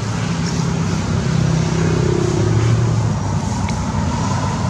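A motor engine running steadily nearby: a loud, even low hum, like road traffic or an idling vehicle.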